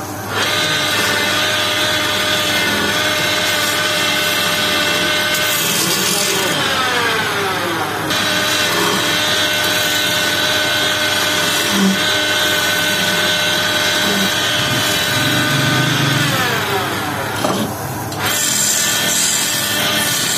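Wood lathe running with a steady motor whine while a hand-held gouge cuts into the spinning wooden spindle, scraping off shavings. Twice the whine slides down in pitch over a second or so, then jumps straight back up.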